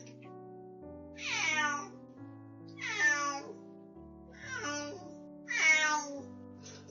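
Domestic cat meowing loudly four times, each long call falling in pitch, about one every second and a half, over background music.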